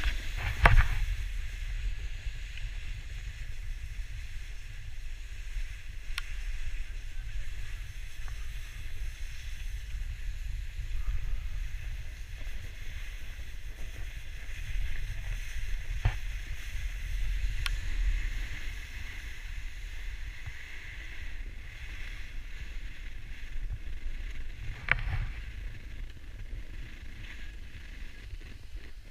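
Skis sliding downhill on packed snow: a steady scraping hiss over a low wind rumble on the camera microphone, with a few short knocks along the way.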